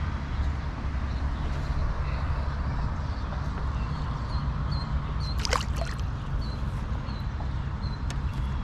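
Outdoor background at a pond: a steady low rumble, with faint short high chirps repeating evenly through the middle and a couple of sharp clicks about five and a half seconds in and near the end.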